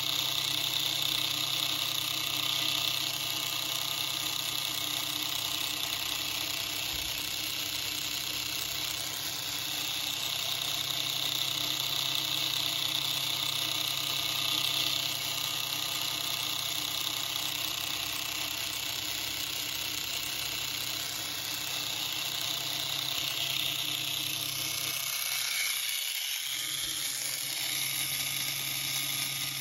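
Small electric gear motor running steadily, its gear train whirring with a constant high-pitched whine as the output arm slowly turns.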